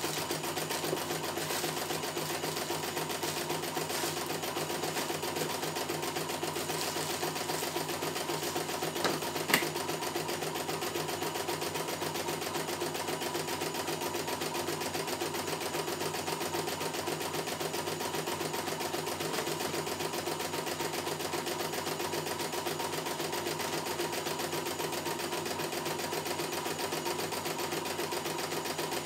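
CNY E900 computerized embroidery machine stitching a design, the needle running at a fast, even rate as the embroidery unit moves the hoop. Two sharp clicks about nine seconds in.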